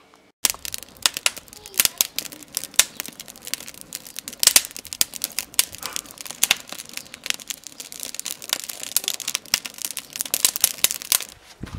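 Burning firewood and kindling crackling, with dense, irregular snaps and pops that start suddenly about half a second in.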